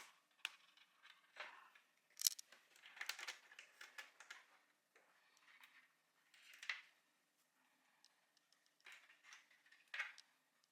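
Faint, irregular clicks, snaps and short scrapes of small hard plastic parts being handled and fitted together, the sharpest click about two seconds in.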